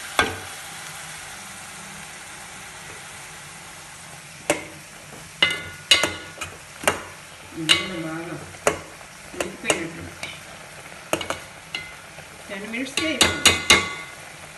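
Finely chopped onions sizzling in oil in a clay pot, still giving off their water before they brown. Over the steady sizzle, a steel spoon stirring chicken pieces in an aluminium pot makes about a dozen sharp, ringing clinks against the metal, starting about four seconds in and bunching up near the end.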